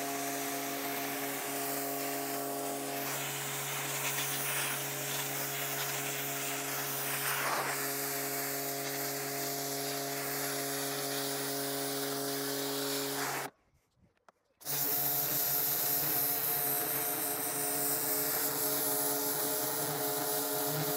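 Güde GHD-225 electric pressure washer running, its motor and pump giving a steady hum under the hiss of the spray. The sound cuts out for about a second a little over halfway through, then starts again unchanged.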